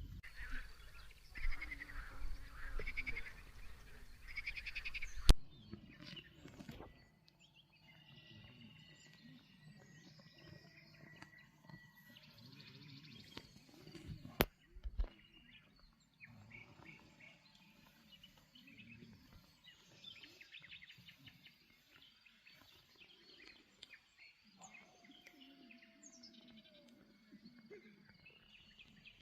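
Wild birds calling and chirping. The first five seconds hold a loud, noisy stretch with harsh calls that ends in a sharp click; after that, quieter scattered chirps and songs follow, with another single click about halfway through.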